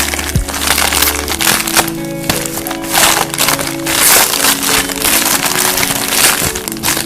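Background music with a steady beat and sustained bass and synth notes.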